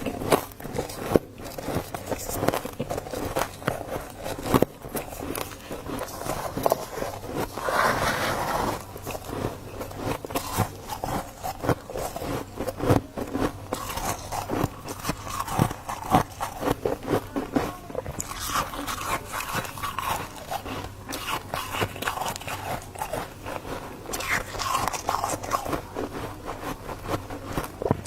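Dry freezer frost being bitten and chewed close to the microphone: a dense, irregular run of squeaky crunches.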